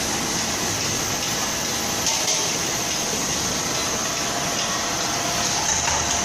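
Steady noise of pressure cooker production-line machinery running: a constant hiss over a low hum, with a few faint knocks about two seconds in and again near the end.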